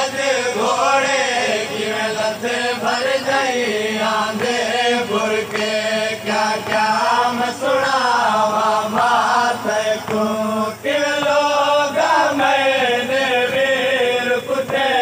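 Men's voices chanting a noha, a Shia mourning lament, in a continuous melodic chant.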